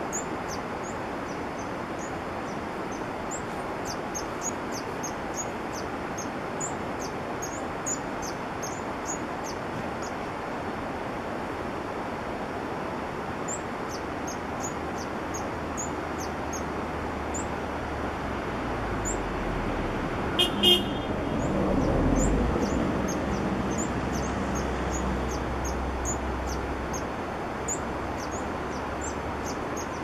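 Green-and-white hummingbird calling a long run of thin, high chip notes, about two a second, with a short pause partway through. About two-thirds in, a passing vehicle adds a low rumble and two short horn toots over a steady background hiss.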